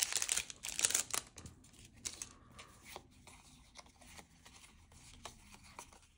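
Foil booster-pack wrapper crinkling for about the first second, then quieter scattered ticks and rustles of Pokémon trading cards being handled and flipped through one by one.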